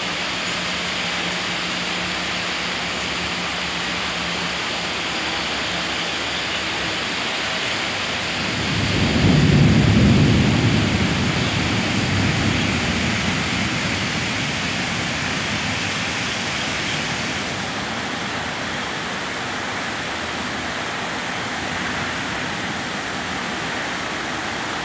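Heavy rain falling steadily, a continuous hiss. About eight seconds in, a deep roll of thunder swells, peaks a couple of seconds later and slowly dies away.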